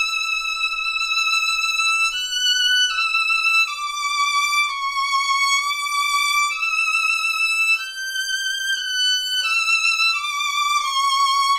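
Solo violin played slowly high on the instrument: long sustained bowed notes moving in small steps, about ten notes in all. They are played with little vibrato so that the instrument's resonance comes through.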